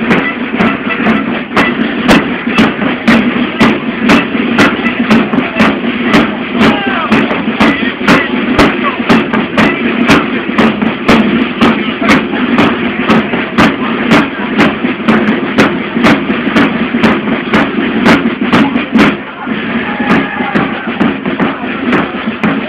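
Carnival band music in the street with a steady, regular drumbeat about two and a half beats a second, mixed with crowd voices.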